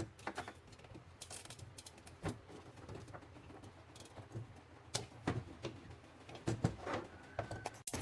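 Scattered small clicks and taps of objects being handled, about a dozen of them spread irregularly, over a faint low hum.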